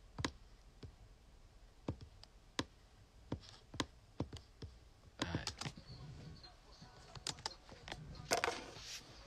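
Irregular clicking of keys and buttons being pressed at a computer workstation: about a dozen sharp, separate clicks, with two brief rustling noises about halfway through and near the end.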